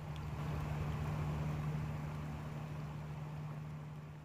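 Floodwater rushing down a wadi channel: a steady rushing noise, with a steady low hum underneath that begins to fade near the end.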